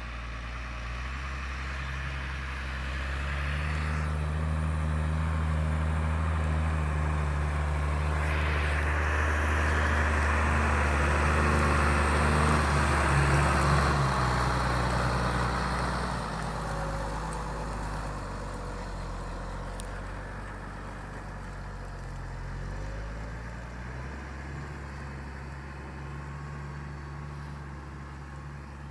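Deutz-Fahr Agrotron 6.45 S tractor's diesel engine running under load while pulling a plough. It grows louder to a peak about halfway through, with a rushing hiss while it is closest, then drops slightly in pitch and fades as it moves away.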